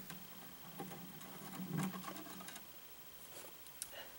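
Faint scattered clicks and scrapes of bare copper ground wires being handled as a small crimp sleeve is slid onto them, then pliers are picked up.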